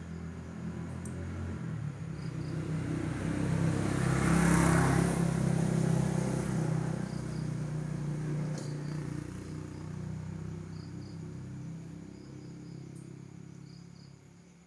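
A motor vehicle passes by, its engine and tyre noise growing louder to a peak about four to five seconds in, then slowly fading away. Crickets chirp faintly throughout.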